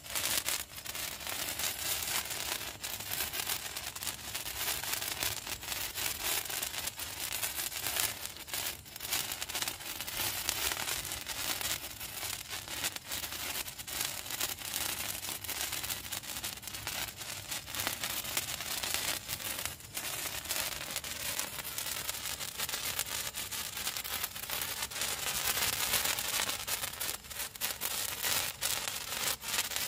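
A pair of hand-held wire sparklers burning, giving a steady crackling hiss full of tiny pops as they throw sparks.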